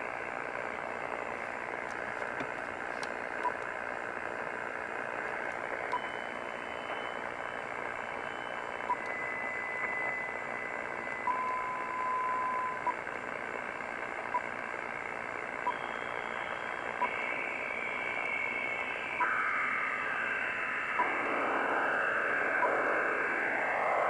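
Shortwave radio audio from an Icom IC-718 receiver: steady static hiss with short beeps every second or two and a few held whistles coming and going, then, in the last few seconds, sliding tones that rise and fall across one another. The listener takes this signal for the HAARP transmitter in Alaska.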